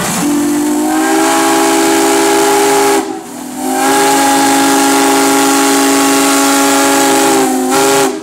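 Steam whistle on a 1911 Case 110 steam traction engine, sounding a chord of several tones together in two long blasts: one of about three seconds, then, after a short break, one of about four seconds, over a steady hiss of steam.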